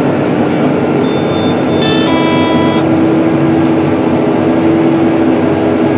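Deutz-Fahr 9340 TTV tractor heard from inside its cab: a steady engine and drivetrain drone with a constant hum during a headland turn. About a second in, a high electronic tone sounds for nearly two seconds, dropping to a lower set of tones halfway through.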